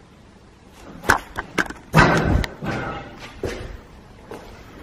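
A run of sharp knocks and thuds, with a louder, longer clattering bang about two seconds in.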